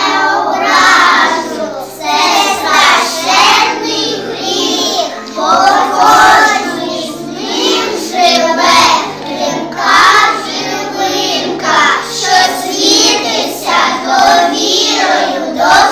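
A child singing a song with musical accompaniment.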